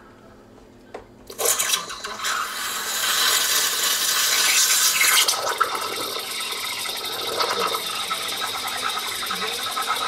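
De'Longhi Stilosa EC260BK espresso machine's steam wand frothing milk in a cup: after a click about a second in, a loud steam hiss starts suddenly, loudest for its first few seconds, then settles into a steady hissing gurgle as the steam works through the milk.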